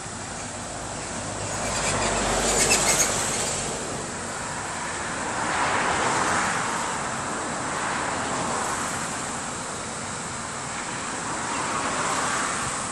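Road traffic passing on a nearby road: vehicles come and go in several swells. The loudest, with a low rumble, passes about two to three seconds in.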